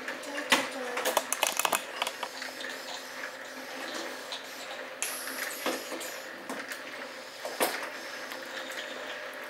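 Plastic toy cars knocking and clattering on a wooden table, with a quick run of knocks about a second in and single knocks near six and eight seconds, over a faint steady hum.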